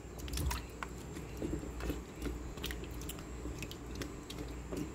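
Plastic spoon stirring slices of ambarella pickle in brine in a plastic bucket: irregular light clicks and knocks as the spoon pushes the fruit around.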